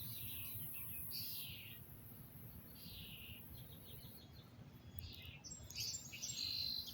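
Wild birds chirping, with short separate calls every second or so over a faint low background rumble.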